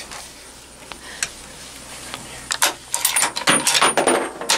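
Hard gear being handled: a quick run of clicks and rattles that starts about two and a half seconds in and grows denser toward the end.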